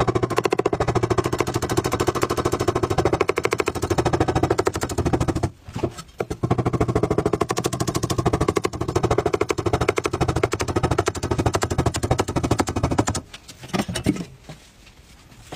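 Chef's knife chopping rapidly through a halved purple carrot onto a wooden chopping block, a fast, even rattle of strikes. It breaks off briefly about a third of the way in, starts again, and stops near the end after a few last taps.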